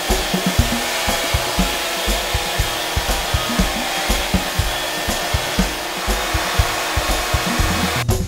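Random orbit sander running steadily on the face of a walnut and maple cutting board, a constant whirring hiss that stops about eight seconds in. A drum beat from background music runs underneath.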